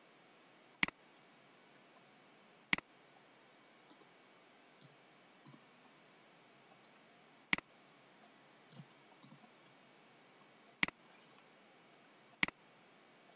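Computer mouse clicking five times at irregular intervals, each a sharp click with a quieter second tick just after it, over a faint steady hiss.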